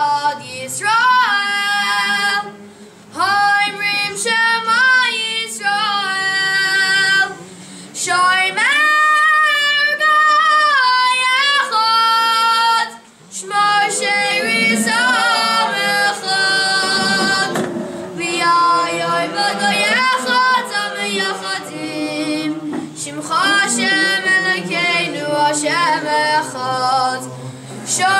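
A cantor chanting Selichot prayers in a high voice, holding long notes and sliding between pitches in ornamented phrases, with short breaks between them. Other voices sing beneath him.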